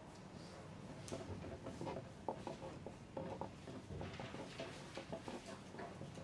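Faint exam-hall ambience: pencils writing on paper at desks, irregular small clicks and scratches.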